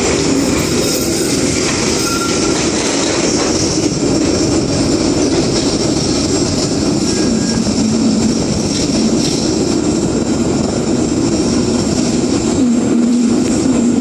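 Streetcar running along its rails, a steady loud rumble of wheels and running gear with a faint high squeal of wheels on the track. A low motor hum comes in about halfway.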